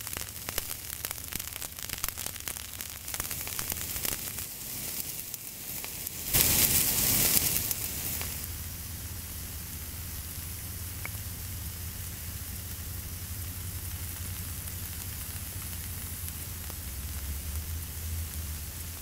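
Wood and charcoal fire crackling, with many small pops over the first few seconds. About six seconds in comes a loud rushing whoosh lasting about two seconds, then the fire settles into a steady hiss.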